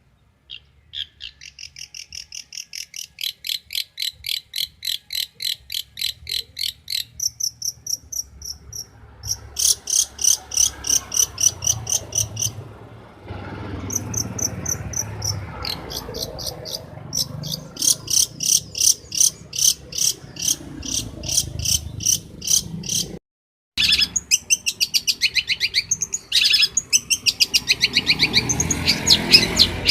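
Long-tailed shrike (cendet) singing: runs of fast, evenly repeated high chirps, about four notes a second, changing from one phrase pattern to another. The sound drops out briefly about three-quarters of the way through, then resumes.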